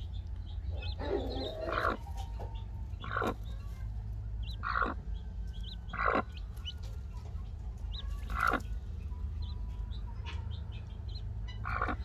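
A broody hen and her newly hatched guinea fowl keets calling in the nest box: short calls every second or two, with faint high peeps from the keets.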